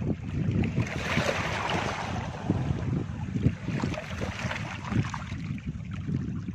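Small, calm sea waves washing onto a beach, with a louder wash about a second in, and wind buffeting the microphone with low rumbling.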